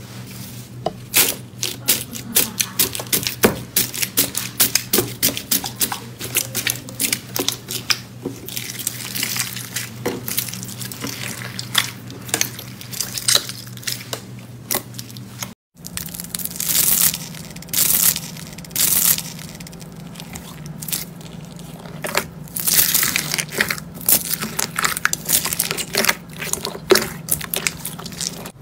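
Slime being pressed and squeezed, with dense crackling clicks and wet, sticky pops, over a faint steady hum. The sound breaks off briefly about halfway through and resumes with a second batch of slime.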